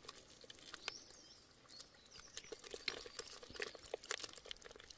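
Faint light splashing and scattered ticks of feet wading in a shallow stream, with a bird chirping briefly about a second in.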